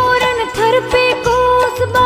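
Background music from an Indian devotional folk song: a held, wavering melody over a regular drum beat.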